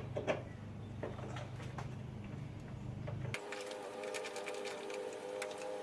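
Plastic clicks and knocks of a truck headlight housing being handled into place, then, about three and a half seconds in, a small electric motor starts running steadily, with rapid ticking over its whine.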